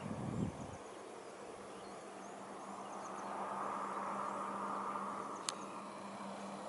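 Steady insect buzzing that swells a little near the middle, over an even low hum. There is a brief low rumble at the very start and one sharp click about five and a half seconds in.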